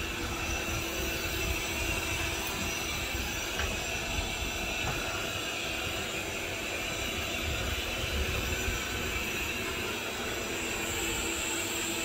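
Roborock S7 robot vacuum running steadily as it sweeps across a tile floor.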